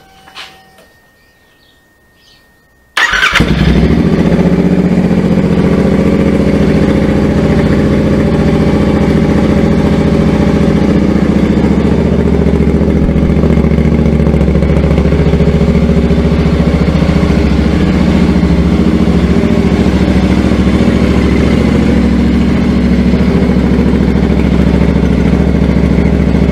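Royal Enfield Interceptor 650's parallel-twin engine with aftermarket sports exhaust mufflers starting about three seconds in, then idling steadily and loudly through the exhaust.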